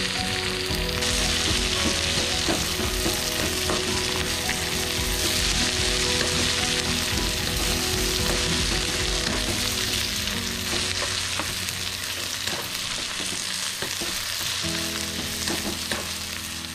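Sliced onions sizzling steadily in hot oil in an aluminium kadhai, with a steel spoon stirring and scraping the pan now and then as the onions are sautéed.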